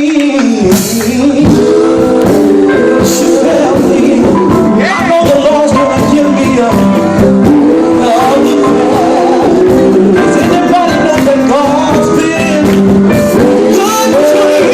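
Gospel group performing a song: male voices singing over a band with a steady drum beat.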